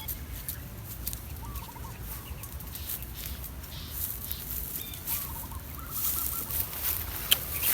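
Chickens clucking in short repeated bursts in the background, with scattered light clicks and taps.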